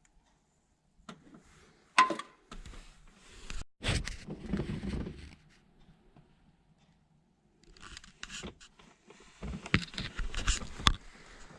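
Hand tools on a Subaru's cylinder head bolts: a sharp metallic clink about two seconds in, then two bursts of scraping, rattling clicks as the wrench and socket are worked on the bolts.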